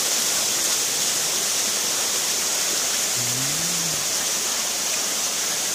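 Steady rush of flowing stream water, with a short hummed voice sound about three seconds in.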